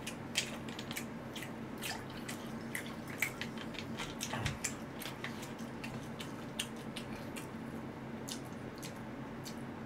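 Faint eating sounds: scattered small clicks and wet smacks while chewing, with soju trickling from a glass bottle into a brass cup, over a steady low hum.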